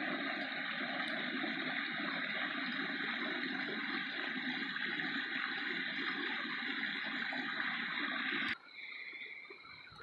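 A small rocky mountain creek, running with snowmelt, flowing and splashing over stones in a steady rush of water. The sound cuts off abruptly about eight and a half seconds in, leaving only a faint background.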